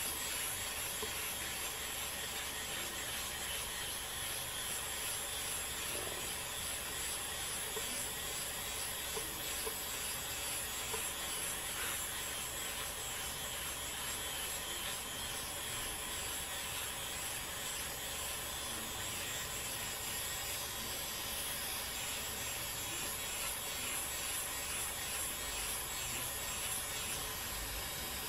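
Flawless battery-powered facial hair remover running steadily, an even small-motor whir with a high-pitched whine, as it is rubbed over the skin.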